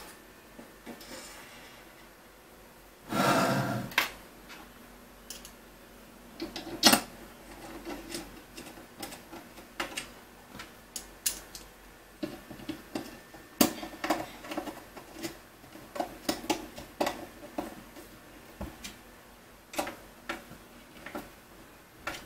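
Scattered sharp clicks and taps of small M5 screws and a screwdriver on plastic corner brackets and aluminium extrusion as screws are picked up and driven into T-slot nuts, more frequent in the second half. There is a louder scrape lasting about a second, about three seconds in.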